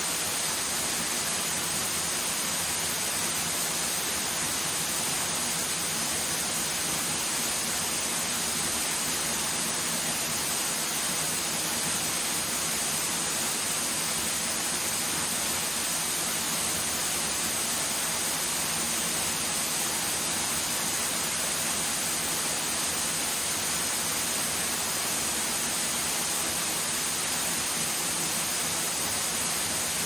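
Steady hiss and splash of a thin curtain waterfall dropping off a rock overhang onto stones and a shallow pool, heard from behind the falling water.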